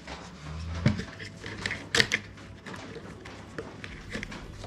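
Plastic parts of a Roborock S8 robot vacuum being handled and pushed back into place, with a few sharp clicks and knocks, the loudest about two seconds in.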